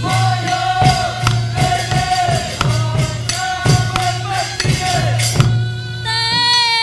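A woman singing a Karen don dance song to live percussion accompaniment: sharp, jingling strikes about three times a second over a long held note, and near the end her voice moves into a higher, wavering phrase.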